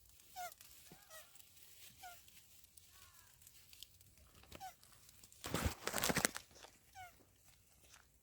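Turtle making short squeaky calls during mating, each one falling in pitch, about six in all, spaced irregularly. A louder noisy burst lasting under a second comes about five and a half seconds in.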